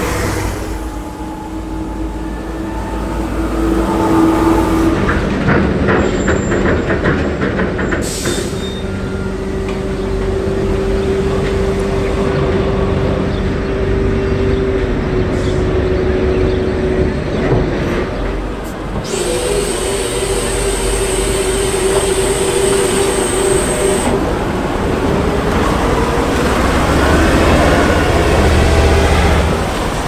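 Diesel engines of M3 amphibious rig vehicles running under load, with steady engine tones and several abrupt changes in sound. Near the end, an engine note rises in pitch.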